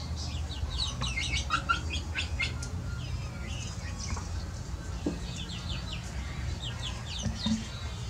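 Eurasian tree sparrows chirping: quick runs of short, high, falling chirps in several clusters over a steady low rumble.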